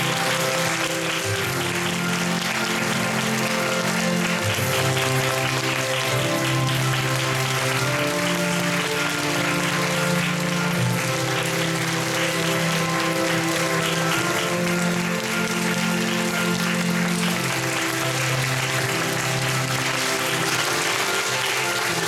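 Theatre audience applauding steadily over curtain-call music with slow, held low notes.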